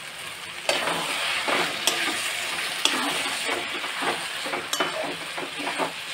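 Spatula stirring and scraping fried onions, tomatoes and ginger-garlic-chili paste around a metal kadai, over a sizzle of frying in oil. The stirring starts just under a second in, with a few sharp clicks of the spatula against the pan.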